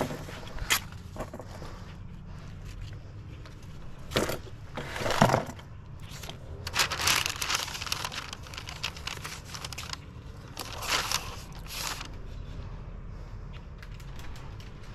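Masking tape being pulled off the roll and pressed down, heard as several short ripping, crinkling bursts, over a steady low rumble of wind.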